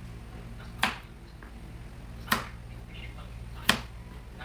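Knife chopping on a cutting board: three sharp strikes about a second and a half apart, over a steady low hum.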